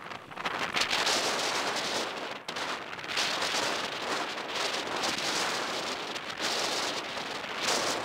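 Wind rushing over the microphone of a camera carried on a moving bicycle, a steady noisy rush that swells and dips.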